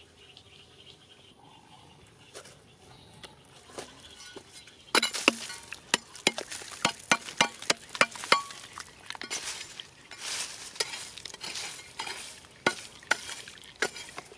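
A flat-bladed metal digging tool strikes and scrapes into a crumbly dirt-and-rock bank, and loose soil and grit patter down. The strikes start sharply about five seconds in and come in a quick run of about two a second.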